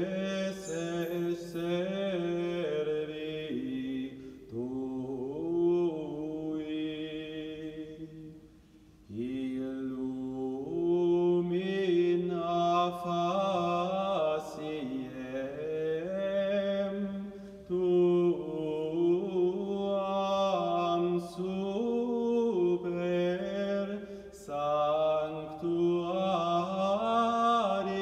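Unaccompanied Gregorian chant in a male vocal range: one melismatic line that moves step by step from note to note, with a short pause for breath about eight seconds in.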